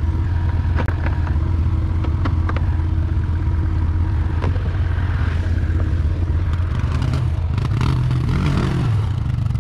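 Can-Am ATV engine running steadily under way, with scattered knocks and rattles from the machine. Near the end the engine note rises and falls with the throttle.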